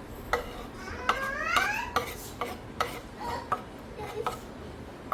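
A metal utensil stirring and scraping in a metal pot, with sharp clinks against the pot about every half second to second. There are squeaky scrapes that rise in pitch a second or two in.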